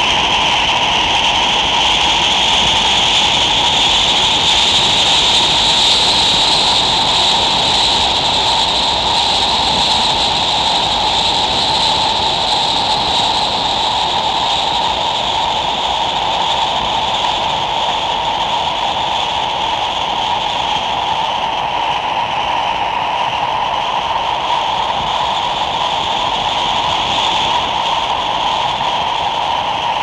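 Wind blowing steadily, a continuous rushing with a hollow, whistle-like tone whose pitch drifts slowly up and down. It is a little stronger in the first third and eases slightly afterward.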